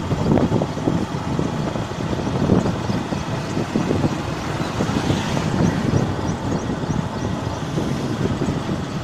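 Wind buffeting the microphone of a moving motorcycle, in uneven gusts over the bike's riding noise.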